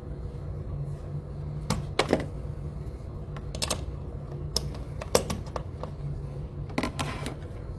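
A string of sharp clicks and knocks, some in quick pairs, as a hand works a plug in a wall socket next to a light switch, over a steady low hum.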